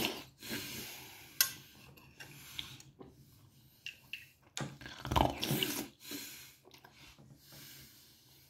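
A man eating close to the microphone: wet mouth noises as he takes soupy food off a spoon and chews. There is a louder, rough slurp about five seconds in and a sharp click about a second and a half in.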